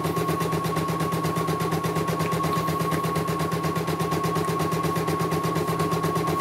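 CNY E900 portable computerized embroidery machine stitching a design: a rapid, even stitch rhythm over a steady motor hum with a thin high whine, the stitching running smoothly.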